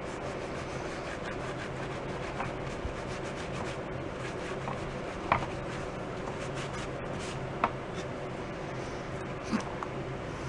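A damp cloth rubbing and wiping wet glue off the painted wooden shell of a Slingerland Radio King snare drum, over a steady low hum. A few sharp taps of hand or cloth against the shell stand out, the loudest about five and a half and seven and a half seconds in.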